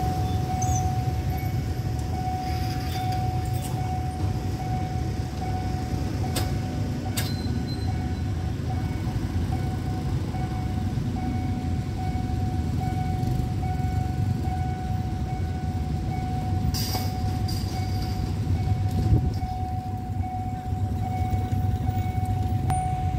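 Railway level-crossing warning signal sounding one steady tone over a constant low rumble, while the barriers are down for an approaching freight train.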